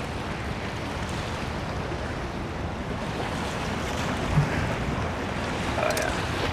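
Steady rushing of wind buffeting the microphone over the sound of river water, with no clear separate event.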